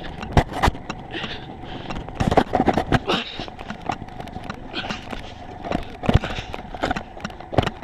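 Footsteps of someone running over rough ground, an uneven series of thuds and scuffs.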